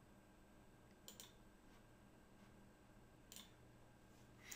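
Near silence broken by a few faint computer mouse clicks: a quick pair about a second in and one more a little after three seconds.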